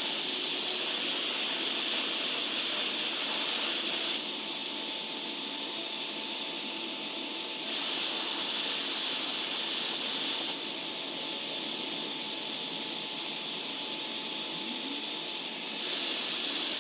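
Electric heat gun running steadily, its fan blowing hot air onto a carburetor float bowl held at its nozzle. The rush of air cuts off sharply at the end.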